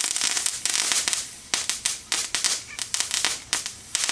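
A lit firework hissing and crackling, then a run of sharp cracks and pops at uneven spacing.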